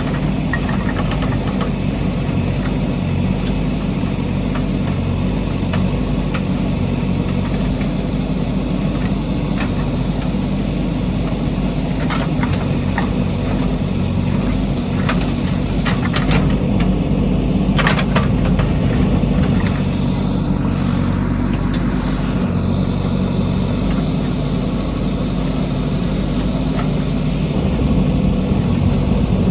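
Diesel engine of a JCB backhoe loader running steadily, with a few short knocks and clinks partway through.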